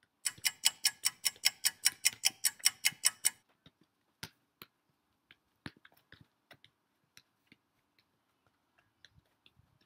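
A fast, even ticking like a clock or countdown timer, about six ticks a second, for the first three seconds or so, then a few scattered light taps.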